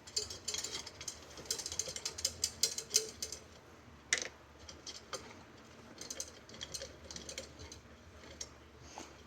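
Bicycle rear wheel parts being worked by hand: rapid small metallic clicks and ticks, thick for the first few seconds, with one louder click about four seconds in and sparser clicking after. The spokes are slack, with no spoke tension left.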